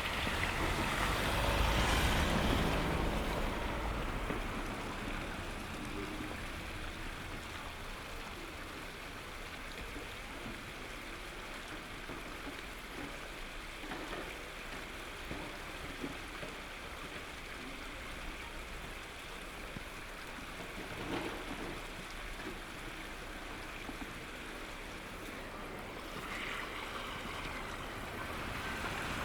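Strong wind of a snowstorm, a steady rushing noise, with a louder gust buffeting the microphone in the first few seconds and another swell near the end.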